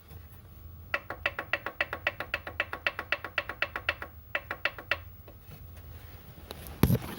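Piston knock in a Kia Sportage G4KD 2.0 engine: rapid, even metallic knocking at about seven a second, in two runs with a short break, over a faint steady hum. It is the sign of worn pistons and cylinders, with a piston that has scuffed its cylinder wall. A single loud thud comes near the end.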